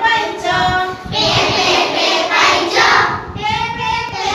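A group of young children singing an Odia rhyme together in unison.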